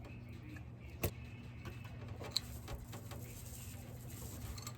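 Steady low electric hum, as from the Vanagon's electric fuel pump running, with a sharp click about a second in and a lighter tick a little later.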